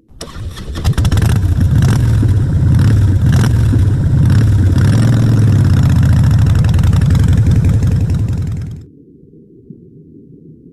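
Motorcycle engine running, a loud rumble that builds over the first second, holds steady and cuts off suddenly after about eight and a half seconds.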